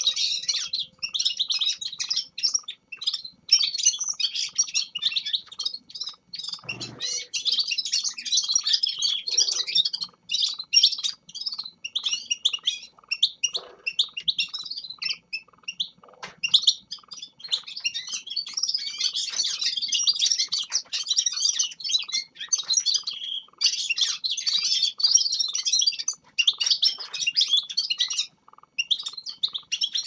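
Several caged finches, among them a European goldfinch, singing and twittering together: a dense stream of rapid high chirps and trills with only brief pauses.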